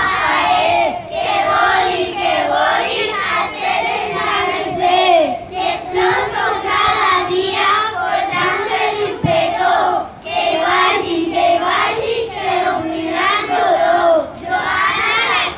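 A group of schoolchildren singing a song together in unison, stopping near the end.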